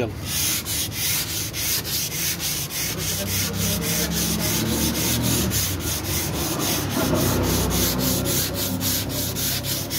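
Dry sandpaper on a hand sanding block rubbed back and forth over body filler on a car body panel, in quick even strokes about four a second.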